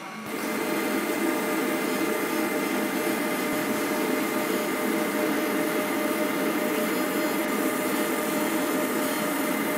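Laser marking machine running as it engraves lettering into a steel knife tang: a steady fan-like whir with a constant thin whine, starting just after the beginning.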